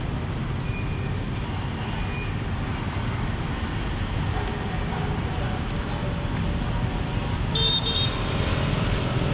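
Steady low rumble of city road traffic. Two faint short beeps sound in the first two seconds, and a brief high-pitched toot, like a horn, cuts in about eight seconds in.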